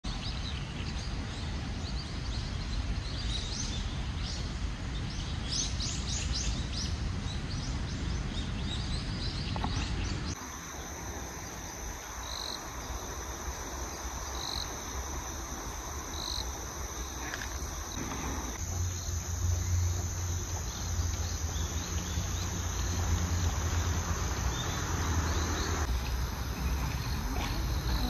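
Park nature ambience: crickets and other insects singing in a steady high trill, scattered bird chirps, and a constant low rumble underneath. The mix changes abruptly about ten seconds in and again near 18 and 26 seconds.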